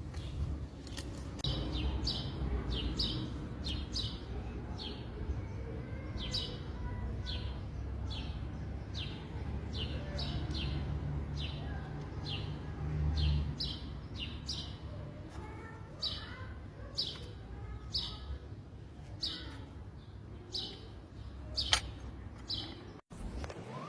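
A small bird chirping over and over, short high chirps about one or two a second, over a steady low rumble.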